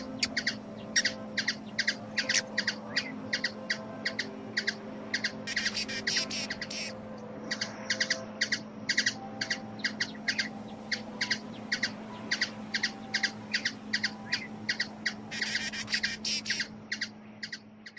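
A bird chirping in a long, even series of short high notes, about two to three a second, over a steady low hum. Twice the notes come in quicker, denser bursts, and the sound fades out at the end.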